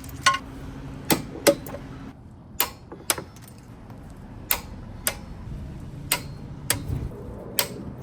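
A series of sharp clicks and taps from tools being handled, about a dozen of them at uneven intervals of half a second to a second.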